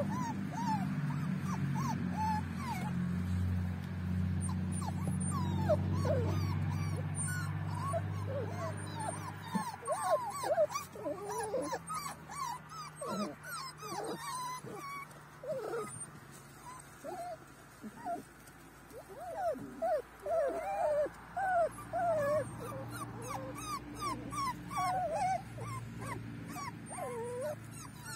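Several young puppies whimpering and squeaking, many short high cries one after another. A low steady hum runs under the first third and comes back near the end.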